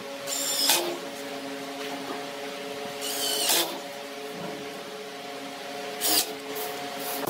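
Three short rasping strokes of a hand tool working wood, about three seconds apart, over a steady hum.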